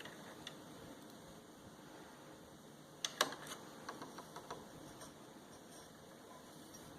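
Faint handling sounds of threading a serger by hand: a quick run of light clicks and ticks about three seconds in, over a quiet background.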